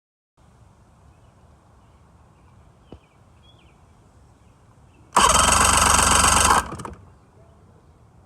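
An engine starts and runs loudly for about a second and a half, then cuts off, over a faint outdoor background with a few faint chirps.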